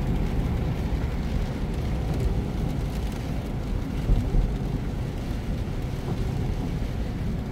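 Steady low rumble of a car's engine and tyres on a wet road, heard inside the cabin while driving, with two brief thumps about four seconds in.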